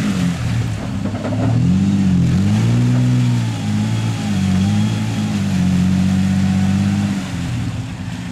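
Ford Ranger pickup's engine revving up and down in repeated swells as its wheels spin in mud and water. It holds higher revs for a couple of seconds before easing off near the end.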